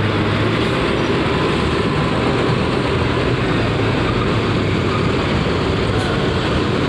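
Mercedes-Benz 1626 coach's diesel engine running at low speed as the bus drives slowly up a ferry's loading ramp, in a steady, dense mechanical hum.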